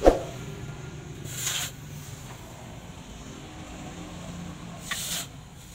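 Hot steel cleaver blade quenched in a water trough: a sharp splash as it is plunged in, then two short hissing bursts as it is moved in the water, over a steady low hum.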